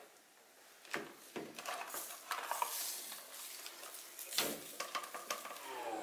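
Roomba robot vacuum's plastic dust bin being knocked and shaken out over a trash can: a few sharp knocks and rustling as debris drops into the bag. Piano music starts just before the end.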